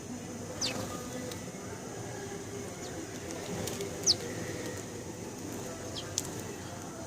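Sparrows giving a few short, sharp chirps, each falling quickly in pitch and spaced a couple of seconds apart, over a steady low background noise.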